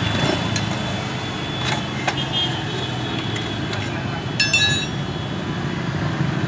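A steel rod scraping and clinking inside a motorcycle chamber exhaust's chrome silencer as old glasswool packing is hooked out, with a few light clicks and one sharp metallic ring about four and a half seconds in, over a steady low background rumble.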